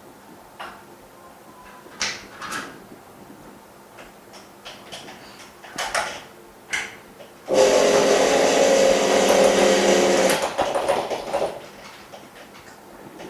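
A few light clicks and knocks of parts being handled, then about three seconds in the latter half a small machine runs loudly and steadily with a humming tone and hiss, trailing off as it stops.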